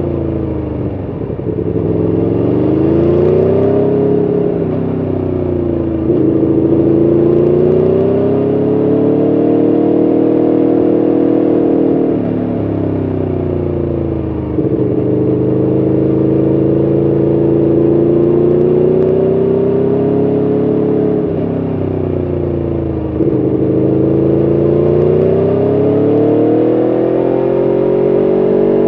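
Aprilia Tuono V4 1100RR's V4 engine under way, its note rising and falling continuously through a run of curves, with several abrupt breaks in pitch along the way.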